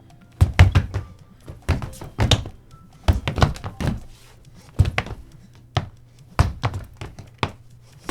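Footsteps: a series of dull thuds, unevenly spaced at about two a second.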